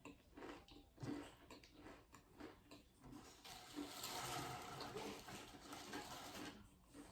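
Faint close-up chewing of a mouthful of Pringles potato crisps. Scattered small crunches come first, then a few seconds of denser, steadier chewing noise around the middle.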